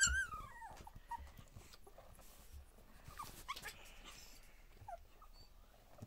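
Two-week-old border collie puppies whimpering: a loud, wavering squeal that falls in pitch at the start, then a few faint, short squeaks.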